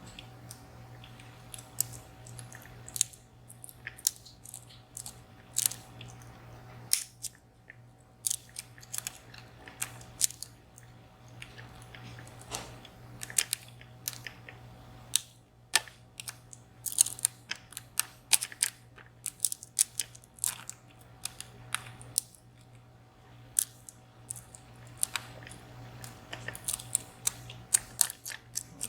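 Irregular small metallic clicks and scrapes of a dimple pick working the pins of a 14-pin, three-row VSR dimple lock with T-pins under tension, over a steady low hum.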